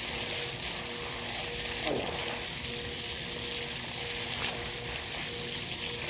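Spring water gushing from an overhead pipe spout and splashing steadily onto a bather and the ground below, an even hiss throughout.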